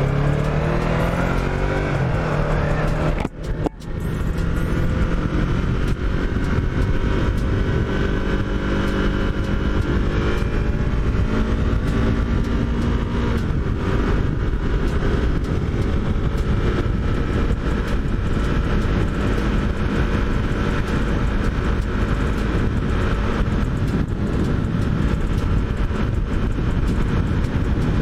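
Yamaha MT-03's parallel-twin engine pulling under acceleration, rising in pitch, with a brief dip in the sound about three seconds in, then running at a steady cruise, heard over heavy wind noise.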